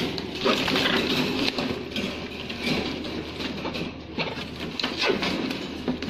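Amazon parrots scrabbling about in a wire birdcage: a busy run of scratchy rustles, clicks and rattles against the bars and floor.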